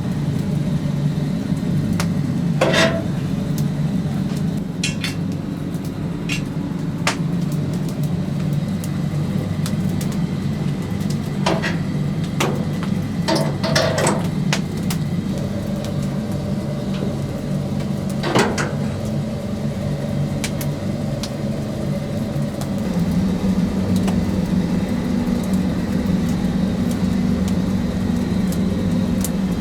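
A steady, low mechanical hum, like a motor running, with a handful of short sharp metallic clinks and knocks scattered through it.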